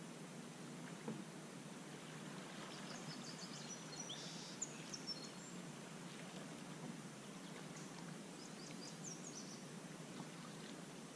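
Outdoor river ambience: a steady low background rush with two spells of small birds chirping, the first about three seconds in and the second near the end.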